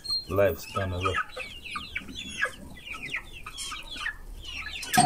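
A flock of young chickens clucking and peeping, a busy overlapping chatter of many short calls, as they crowd in to be hand-fed corn.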